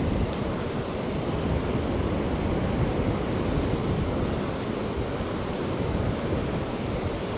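Steady wash of ocean surf mixed with wind rumbling on the microphone.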